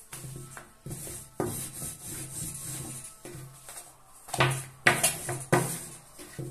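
Long, thin wooden rolling pin rolling and rubbing over a thin sheet of dough on a countertop, with the sheet wound onto the pin, lifted and laid back down. Several sharp knocks a little past the middle, as the pin and dough come back down on the counter.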